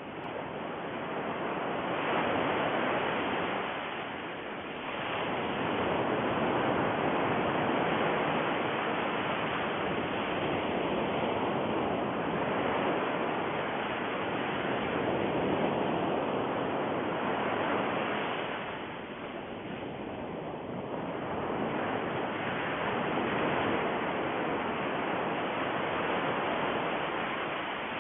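Steady rushing noise like surf, swelling and easing slowly, with softer stretches about four seconds in and again around twenty seconds.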